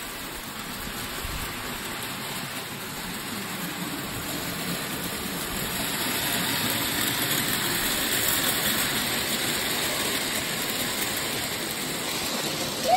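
Model electric train, a blue NS electric locomotive pulling a string of freight wagons, running along its track with a steady rattling whirr of wheels on rails. It grows louder toward the middle as it passes close by and eases off near the end.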